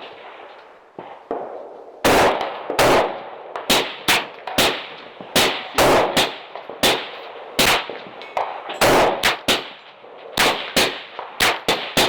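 Rapid, irregular rifle gunfire from several guns on a firing line: some twenty sharp shots starting about two seconds in, some in quick pairs.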